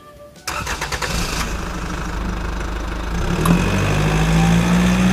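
Car engine sound effect: an engine starts suddenly and runs with a low drone that grows louder and slightly higher about three seconds in, then cuts off abruptly.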